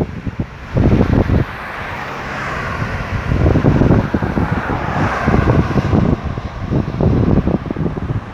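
Highway traffic, with a vehicle passing a few seconds in, and gusts of wind buffeting the microphone.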